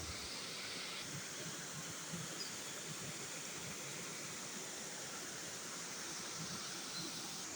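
Steady rushing of a river's flowing water, an even hiss with no breaks.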